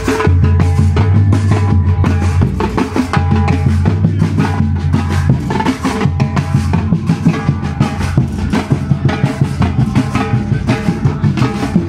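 Samba percussion band playing live: deep surdo bass drums, snare drums and tall hand drums beaten in a fast, dense rhythm, with the deep bass-drum booms heaviest in the first half.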